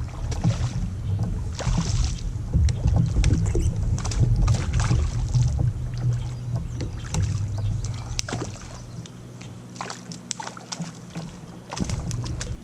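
Handling noise on a fishing kayak: a low rumble with scattered knocks, clicks and short splashy hisses. The rumble falls away about nine seconds in and comes back briefly near the end.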